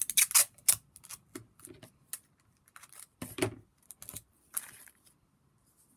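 Roll of sellotape being handled to find the end and pull off a strip: a quick run of sharp clicks and crackles in the first second, then scattered clicks and a louder crackle about three seconds in.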